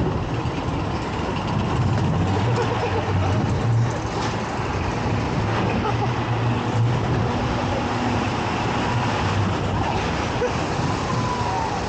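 Wild mouse roller coaster car rolling along its steel track: a steady low rumble with a constant rushing noise over it.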